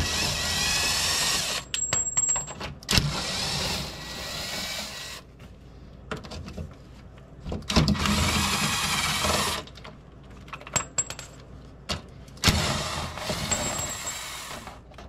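Power drill running in four bursts of about two seconds each, its pitch sweeping as it speeds up and slows down, spinning the 10 mm skid-plate bolts, with small clicks and knocks between the runs.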